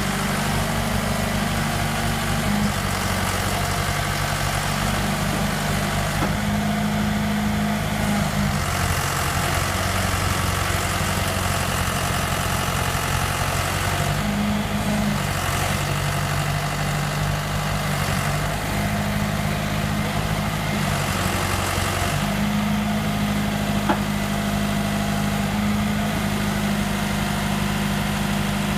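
John Deere 410 backhoe loader's engine running steadily at a low speed, its note shifting a few times, with a single click about three-quarters of the way through.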